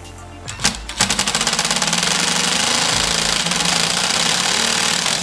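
Power impact driver hammering a flathead bit in a slot cut into a stripped, seized bolt head, trying to back the bolt out. A couple of short knocks, then from about a second in a long, fast, continuous rattle of impacts that stops suddenly.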